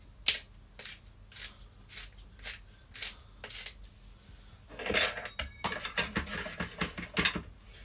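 Hand-twisted salt and pepper grinder grinding in short strokes, about two a second. From about five seconds in, clattering and clinking of crockery and utensils on the worktop.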